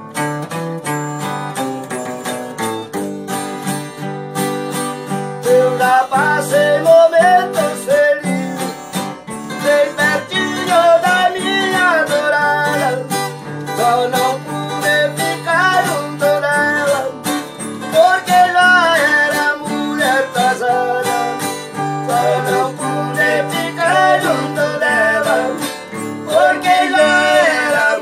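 Two acoustic guitars strummed and picked, joined about five seconds in by men's voices singing together.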